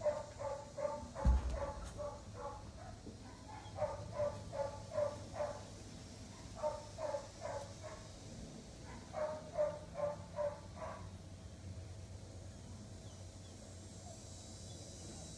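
A dog barking in four quick runs of short, high-pitched barks, about four barks a second. The barking stops after about eleven seconds. A single low thump comes about a second in.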